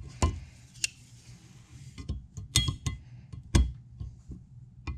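A steel snap ring and snap ring pliers clicking and clinking against a cast suspension arm as the ring is fitted into its groove over a pressed-in spherical bearing. About four sharp metallic clicks with smaller ones between, some with a short ringing tail.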